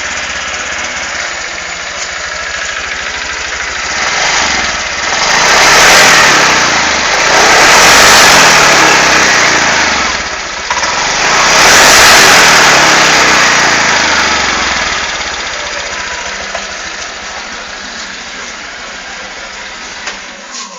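Honda Vario 125 scooter's single-cylinder engine idling, then revved up and down a few times through the middle, with the CVT drive spinning up, before settling back to idle.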